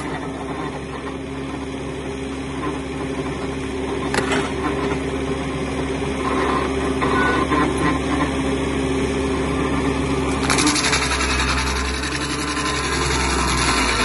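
Engine of a tree-removal machine running steadily. About ten seconds in it grows louder and rougher.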